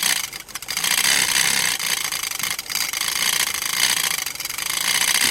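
Small homemade battery-powered motor running, its switch hammer rapidly striking the contact plates and bouncing back: a steady, fast rattling buzz of clicks.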